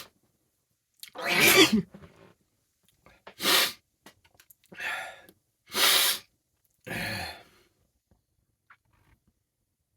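A man sneezing in a fit, set off by tickling the inside of his nose with a paintbrush. Several loud sneezes and sharp breaths follow one another over about six seconds, the first one the longest.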